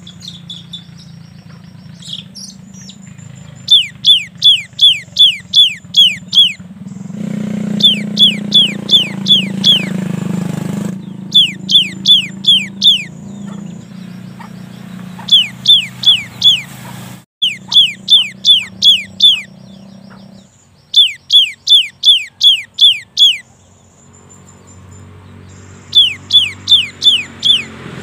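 Cinereous tit (gelatik batu) singing runs of rapid, repeated down-slurred whistled notes, about three a second, in bursts of six to eight with short pauses between, the 'wucit-wucit' song. A steady low hum lies beneath, with a rushing noise for a few seconds around the first third.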